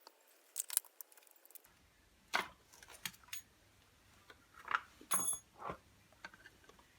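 Scattered light clicks and knocks from small metal parts and tools being handled while a Bosch GBH2/20S hammer drill is worked on, one of them a brief metallic clink about five seconds in.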